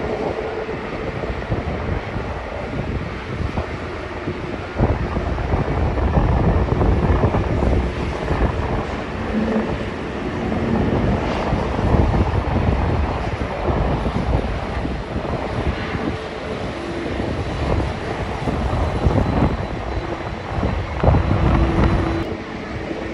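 Jet airliner engine noise: a dense, steady rumble with a strong low end that rises and falls in strength.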